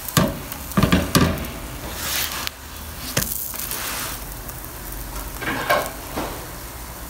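Oiled potato-stuffed paratha sizzling steadily on a hot tawa as it is pressed down with a spatula to cook the underside, with several sharp taps and scrapes of the spatula against the pan.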